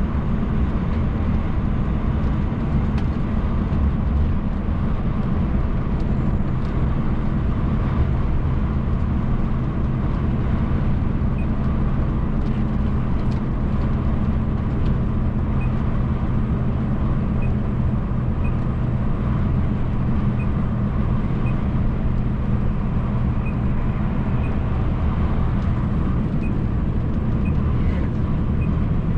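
MAN TGX truck's diesel engine holding a steady cruise, heard from inside the cab as an even low drone mixed with tyre and road noise.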